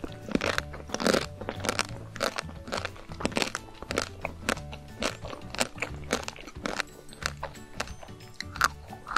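Bites and chewing of a chocolate-coated ice cream bar, its hard chocolate shell cracking and crunching in many sharp crackles, over background music.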